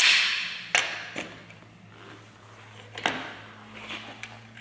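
A new aluminium suspension control arm being handled and fitted onto a front strut assembly: a rustling scrape at the start, then a few sharp metal knocks and clinks as the arm and its bolt are set in place, over a faint steady low hum.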